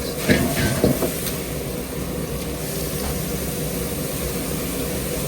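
Steady hiss of kitchen cooking noise, with two sharp metal clinks of a utensil about a third of a second and about a second in.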